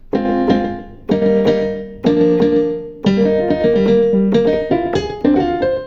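Roland VR-09 keyboard playing its 'cut off piano' tone: a series of piano chords, about one a second. Each chord sounds only while held and stops sharply with no release tail.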